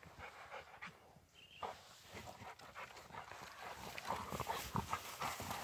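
Two Rottweilers panting as they play with a long dry stick in grass, their mouths and feet rustling the grass and the stick scraping and clicking. The rustling and clicking grow busier and louder from about halfway.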